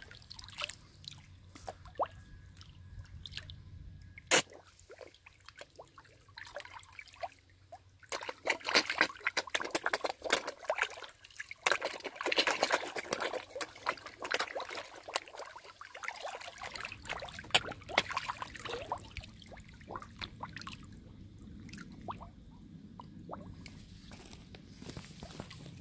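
Carp feeding on bread at the water's surface: an irregular run of wet slurps, drips and sloshes as the fish suck and splash in the shallows, busiest in the middle.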